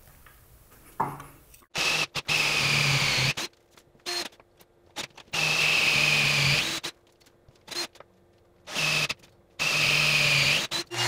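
Power drill boring 3/4-inch dog holes into a workbench top with an auger bit, run in about four short bursts of a second or so, the motor whine dropping away as each burst stops.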